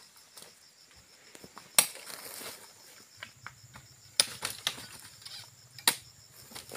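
Sharp knocks and clinks of oil palm fruit bunches being handled with metal-hooked poles and loaded into a hanging scale's basket, with three louder knocks about two, four and six seconds in. Insects buzz steadily behind.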